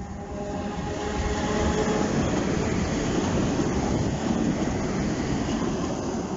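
SNCB Class 13 electric locomotives running past close by: rumble of wheels on the track builds over the first second or two and then stays loud. A thin whine of several steady tones sounds in the first two seconds.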